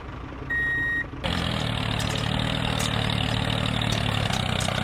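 One more reversing-alarm beep, then about a second in a vehicle engine comes in abruptly and runs steadily at idle.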